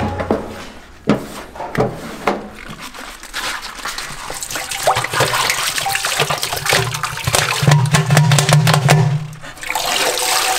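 Two sharp knocks of a scraper against a stainless-steel mixer tub, then liquid pouring and splashing into the tub onto rice flour, with a fresh pour from a jug near the end.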